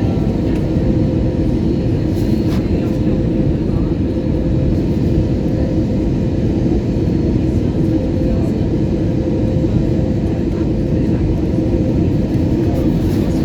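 Steady cabin noise inside an Airbus A320neo airliner on its approach to landing: a constant low rumble of engines and airflow with a steady hum, unchanging throughout.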